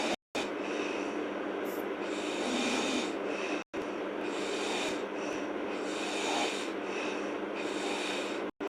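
A sleeping girl snoring heavily, the harsh breathing noise swelling in a regular rhythm about once a second.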